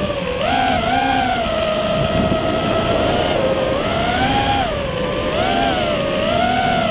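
FPV racing quadcopter's brushless motors and propellers whining, heard from the drone's own onboard camera over a rush of wind. The pitch swells up and falls back every second or two as the throttle is worked in flight.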